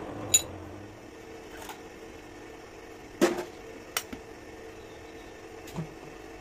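A metal lathe's steady running hum fades in the first second, leaving a faint steady hum. A few sharp clicks and knocks follow from handling a hand drill fitted to the lathe's top slide feed screw, the loudest about three seconds in.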